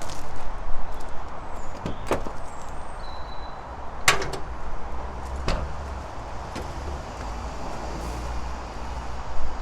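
A few sharp knocks and metallic clicks from hands and tools working on the car's bonnet and gas-strut mounts, the loudest clank about four seconds in, over a steady low rumble.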